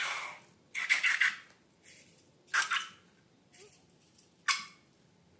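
Short, wet squelching and sputtering bursts from slime being squeezed and worked, about four clear ones with fainter ones between, each under half a second.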